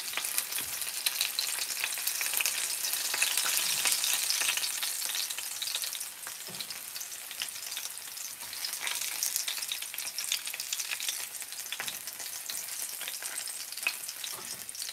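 Karaage chicken pieces shallow-frying in a small amount of oil: a dense crackling sizzle, louder for the first six seconds and then easing off, with a few light knocks.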